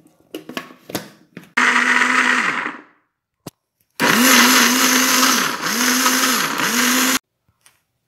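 Electric blender running in two bursts, a short one of about a second and a longer one of about three seconds that cuts off sharply, blending chopped bar soap with hot water. The motor's pitch dips briefly twice during the longer run. A few clicks of the jar and lid being handled come first.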